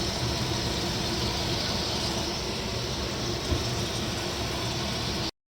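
Steady rushing noise of shrimp stir-frying in butter on the stove, which cuts off abruptly near the end.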